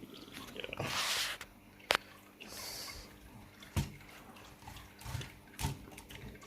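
Small hard plastic clicks and knocks, four sharp ones about two seconds apart, with a brief rustle about a second in, from Lego Technic dirt bike models being handled and set down.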